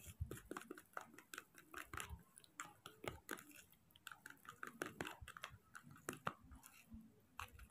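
Faint, irregular wet mouth clicks from a baby macaque sucking on its fingers.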